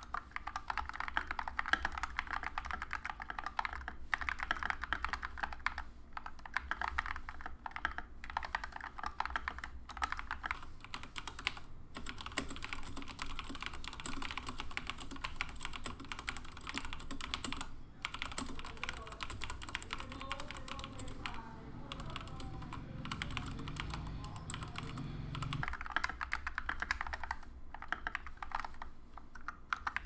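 Fast typing on an MK870 custom mechanical keyboard: a dense run of key clacks with a few brief pauses between bursts.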